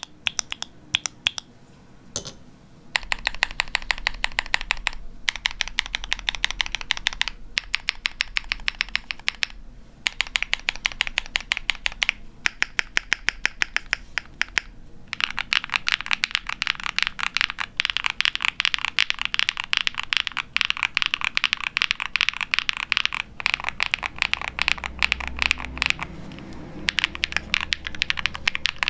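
Typing on a Tofu60 aluminium 60% mechanical keyboard with factory-lubed Huano Cherry Blossom linear switches, a POM plate, foam dampening and PBT keycaps, giving a high-pitched clack. A few separate keystrokes come first, then fast continuous typing with brief pauses, which gets denser and louder about halfway through.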